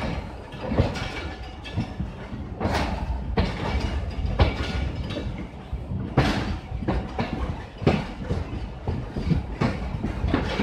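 Hazara Express passenger coaches pulling out at low speed: a steady rumble with irregular clattering and clacks from the wheels running over the rail joints, heard from alongside the moving coaches.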